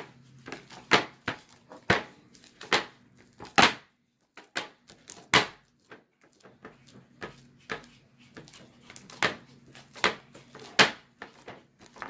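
Homemade fluffy slime being mixed and handled: irregular sharp clicks and soft knocks, roughly one or two a second, with uneven loudness.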